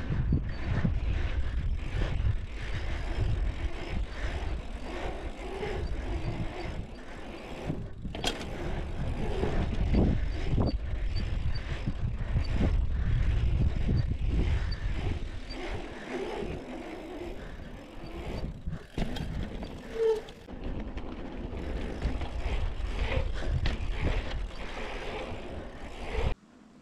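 A Mongoose Fireball dirt jump bike being ridden on a pump track: wind buffeting the microphone and tyres rumbling over the track, with scattered knocks and rattles from the bike. The sound cuts off suddenly near the end.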